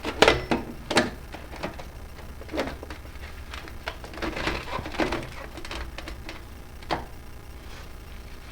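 A run of sharp clicks and knocks from hand tools and parts being handled while the old oxygen sensor is taken out, the loudest two in the first second.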